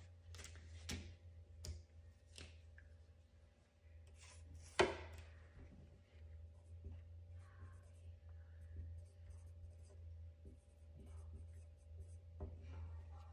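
Marker writing on a small plant label: faint scratchy strokes with small handling clicks, and one sharp knock about five seconds in. A steady low hum runs underneath.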